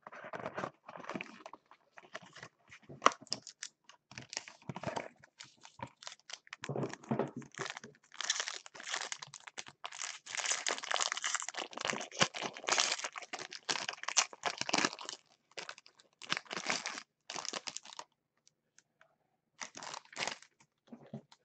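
Foil wrapper of a trading card pack being torn open and crinkled by hand: irregular rustling and tearing, busiest in the middle, falling almost silent for a second or two near the end.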